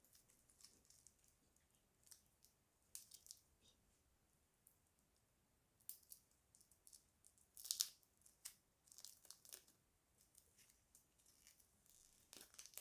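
Faint, scattered crinkling and rustling of packaging being handled and opened, with small clicks; the loudest crackle comes nearly 8 seconds in.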